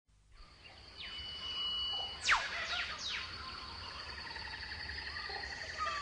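Rainforest birds calling: three sharp whistles sweep steeply down in pitch a little over two seconds in. Under them run a steady high ringing tone and a soft hiss.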